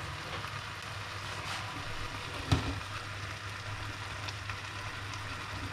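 Rabbit roast in its pan, just deglazed with white wine, sizzling steadily, with a single knock about two and a half seconds in.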